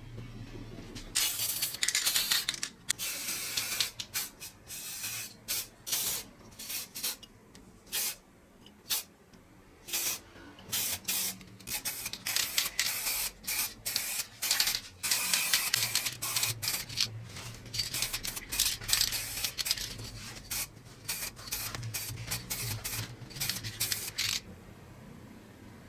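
Aerosol spray can hissing in many short, irregular bursts, some a quick puff and some a second or two long, stopping shortly before the end.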